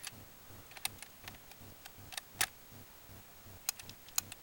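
A .303 bolt-action rifle being handled and loaded: a scattering of light, sharp metallic clicks as rounds and bolt are worked, the sharpest about two and a half seconds in.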